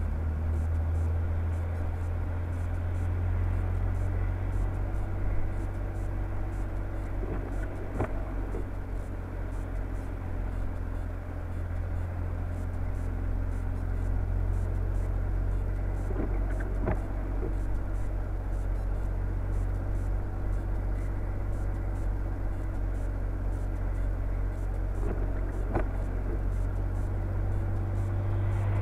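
Car cabin noise while driving: a steady low rumble of engine and tyres on the road, with a few faint knocks.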